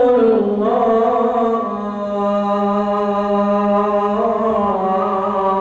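Adhan, the Islamic call to prayer, chanted by a muezzin: one long, ornamented sung phrase whose pitch wavers up and down, on the line 'ash-hadu anna Muhammadan rasulullah'.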